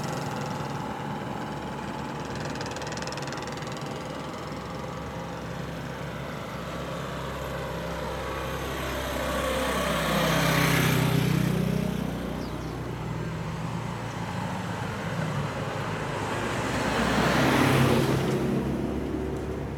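Two road vehicles passing one after the other, each swelling and fading over a couple of seconds, the first about halfway through and the second near the end, over a steady low engine hum.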